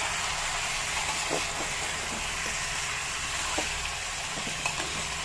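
Mutton, onions and spices sizzling in oil in an aluminium pressure cooker over a high flame while being browned (bhuna), a steady hiss with a few faint spatula scrapes.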